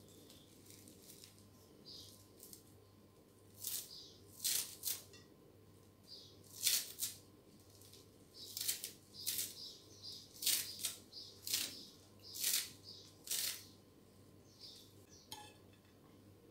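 Kitchen knife cutting through a bunch of fresh parsley held in the hand: a dozen or so short, crisp cuts at an uneven pace, starting about four seconds in.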